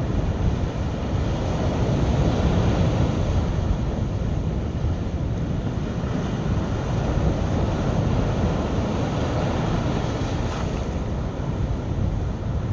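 Sea surf washing on a beach, heard as a steady noise, with wind buffeting the microphone.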